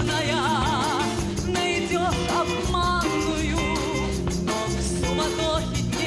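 Female vocalist singing with a live symphony orchestra: one long held note with wide vibrato in the first second, then shorter melodic phrases over a steady orchestral accompaniment.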